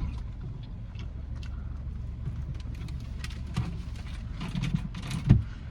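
Steady low hum of a car's interior with the engine running, with scattered small clicks and rustles and a thump about five seconds in.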